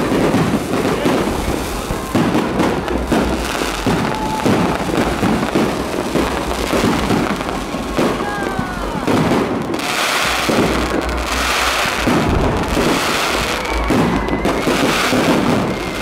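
Aerial firework shells bursting in a continuous barrage, many bangs a second. A few whistles glide in pitch about halfway through and again near the end.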